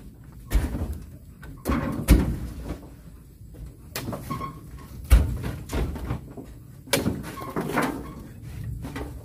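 Oil palm fruit bunches being hooked with a steel pole and heaved onto a truck: about half a dozen sharp thuds and knocks at irregular intervals, the loudest about two seconds in.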